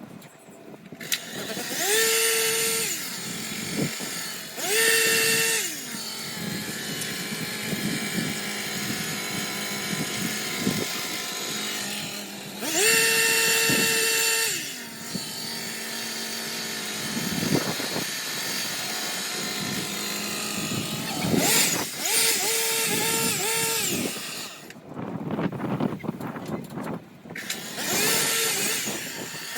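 Handheld garden power trimmer running, its motor repeatedly revving up to a high whine, holding for a second or two, then dropping back to a lower steady speed. About three-quarters of the way through it is blipped several times in quick succession.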